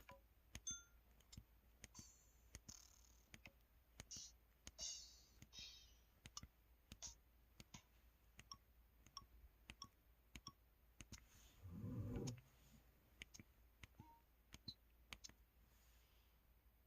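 Faint keypad presses on a KTF-X3500 mobile phone set to its 'drum effect 3' keytones: a string of short, irregularly spaced clicks and brief percussive tones, with a few short hissy hits early on and a duller low hit about twelve seconds in.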